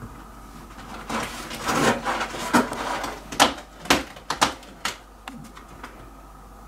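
A cat scrabbling and clawing at a cardboard box: a run of rustles and sharp scratching clicks for about four seconds, then trailing off.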